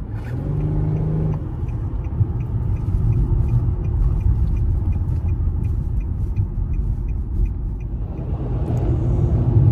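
Infiniti G37 sedan's VQ V6 engine and road noise heard from inside the cabin while driving: a steady low rumble, with a brief humming engine note about a second in.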